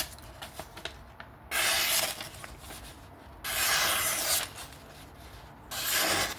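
Three rasping rubbing strokes, each about a second long and roughly two seconds apart, with quiet between them.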